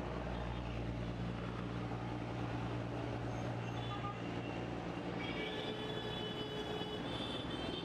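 Low, steady engine hum of a passing vehicle, fading out about five seconds in, with a few thin high tones near the end.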